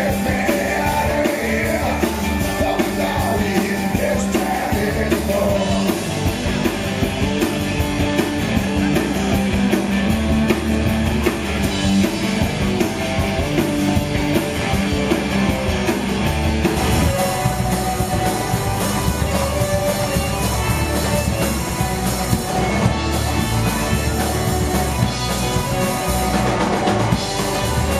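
Live rock band playing loud: drum kit, electric guitar and a male singer.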